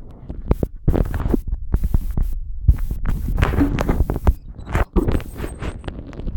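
Handling noise of a phone sealed in a plastic waterproof case: many quick knocks, thumps and rubbing against the plastic as it is moved about, over a low rumble.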